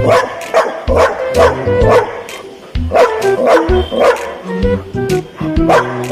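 Background music with a melody and a bass line, with a dog barking repeatedly over it, about two to three barks a second, pausing briefly about two and a half seconds in.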